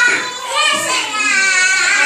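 Young children singing in high voices, with some notes held for a moment.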